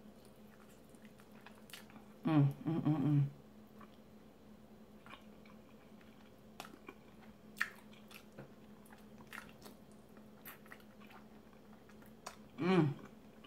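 Chewing, biting and lip smacking as Buffalo chicken wings are eaten off the bone, with scattered small wet clicks. Two short bursts of voice, about two seconds in and near the end, over a faint steady hum.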